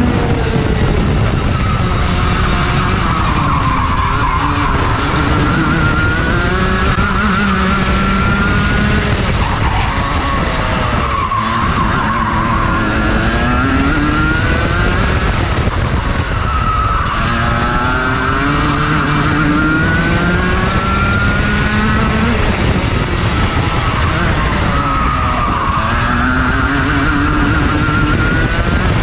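Rotax Max Junior kart's 125 cc single-cylinder two-stroke engine heard from the driver's seat at racing speed, revving up along each straight and falling away as the driver lifts for each corner, the pitch climbing and dropping about six times.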